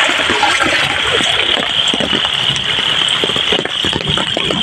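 Heavy rain falling with muddy floodwater rushing over the ground: a loud, steady hiss of water with constant small spatters.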